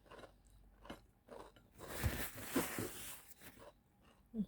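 Close-miked biting and chewing of crunchy food, with scattered crunches and a denser, louder stretch of crunching about two seconds in.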